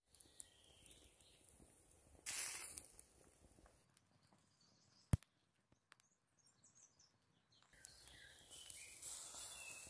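Quiet outdoor ambience around a fire pit of smouldering embers: a short rush of noise a little after two seconds in, one sharp pop from the embers about five seconds in, and faint bird chirps near the end.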